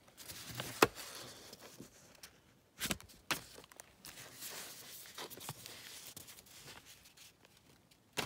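Greeting cards and paper envelopes being handled and flipped through: soft paper rustling with a few sharp taps, one about a second in and two around three seconds in.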